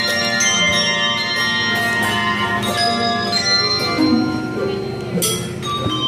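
Handbell choir playing a tune on tables of English-style brass handbells: many ringing notes overlapping and sustaining as each bell is struck.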